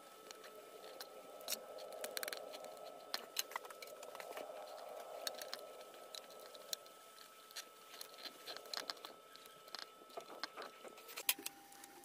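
Fingers handling paper tape on a leather belt with a metal buckle: soft scratchy rustling and scattered light clicks and taps, the sharpest click about eleven seconds in. A faint steady whine runs underneath and drops in pitch at that click.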